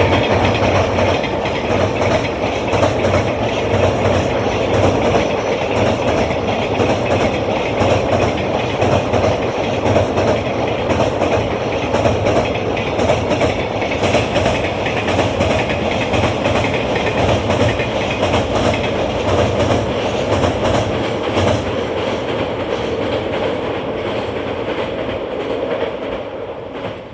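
Long freight train, hauled by an EF510 'Red Thunder' electric locomotive, passing close by with a steady loud rumble and wheels clattering over the rail joints; it fades away near the end.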